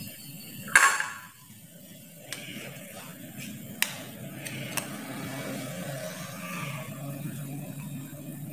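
Stainless steel idli plate and spoon clattering: one loud metal clang with a short ring about a second in, then a few light clicks and scrapes as steamed idlis are lifted off the plate, over a steady low hum.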